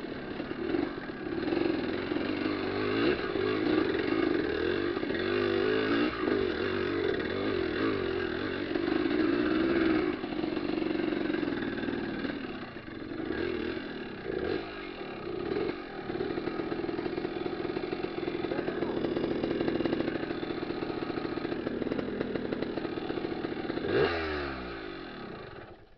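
Motorcycle engine running under way, revving up and down as it is ridden. Near the end its pitch falls quickly as it slows, and it dies away.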